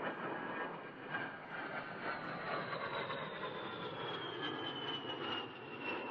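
Twin electric ducted fans of a Dynam A-10 Warthog model running, a rushing sound with a thin whine that slowly falls in pitch from about two seconds in.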